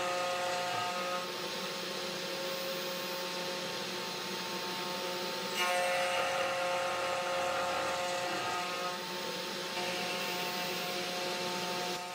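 CNC 3018 Pro Max router milling acrylic plastic with a 2.5 mm two-flute end mill: the spindle's steady whine over the cutting noise. The sound swells and eases every few seconds as the cutter travels along the rod, and is loudest from about halfway in.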